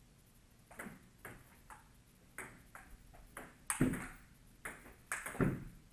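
Table tennis rally: a plastic ball clicking off paddles and a JOOLA table top, about a dozen sharp knocks at uneven spacing, two harder hits near four seconds and just after five seconds in.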